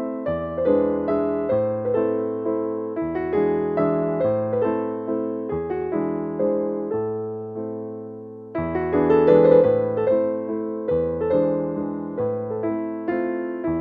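Background piano music: a gentle tune of struck notes over a stepping bass line. One phrase fades out about eight seconds in and a louder one begins.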